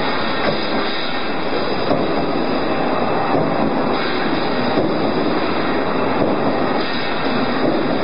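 Cable tray roll forming machine running with a steady, dense mechanical clatter.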